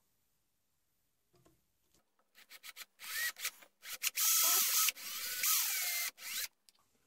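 Power drill boring a pin hole into a wooden rifle stock at the trigger inlet. It starts with a few short pulses about two seconds in, then runs in several longer bursts with the motor speed rising and falling, and stops about six and a half seconds in.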